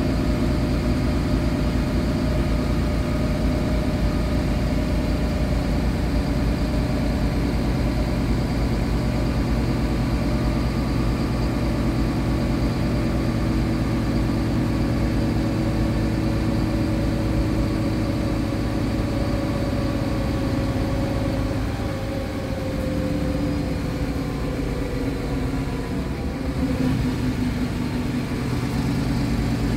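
2015 MAN A20 Lion's City Ü city bus's rear-mounted diesel engine idling steadily while the bus stands at a stop. A whining tone in the hum sinks slightly in pitch over the last third.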